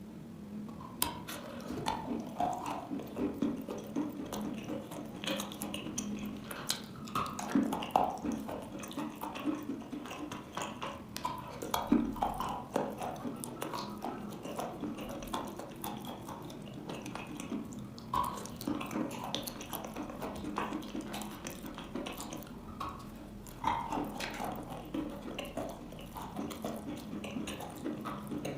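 Someone biting and chewing wet chalk: an irregular run of crunches and wet crackles, with a few sharper, louder snaps.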